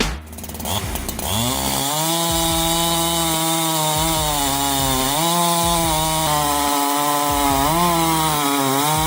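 Bommer AG SX 82 automatic tree-cutting saw running at high speed. Its engine note climbs about a second in, then dips and rises back several times as it works.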